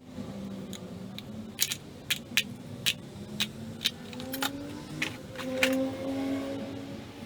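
A run of about ten sharp clicks and knocks, irregularly spaced, over a steady low hum whose pitch rises slightly in the second half.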